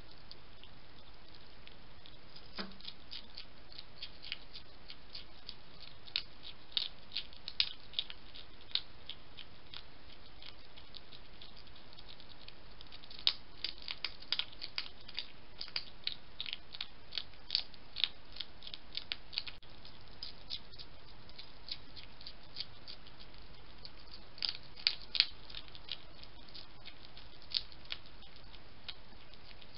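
European hedgehog eating from a dish: bursts of sharp, irregular crunches and clicks as it chews, over a steady hiss.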